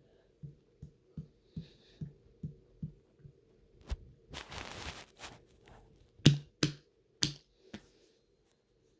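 Water sloshing in a person's stomach: a regular series of low sloshes about two and a half a second, then a short rush of noise and four louder, sharper thuds in the second half.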